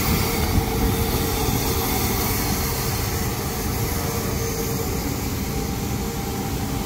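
Steady mechanical rumble of engines running, with a constant droning hum and no distinct events.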